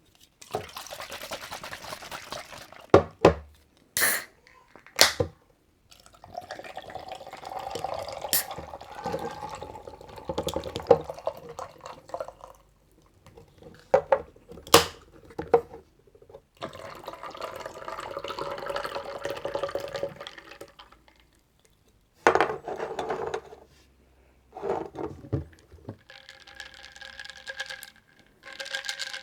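Ssaek Ssaek mandarin drink being poured into a glass in several separate pours, broken up by sharp clicks and taps of the container.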